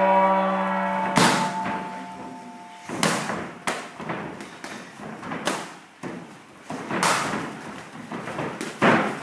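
A round-start gong ringing on and dying away within the first three seconds, then about six irregular sharp thuds of kicks and gloved punches landing as the two kickboxers exchange strikes.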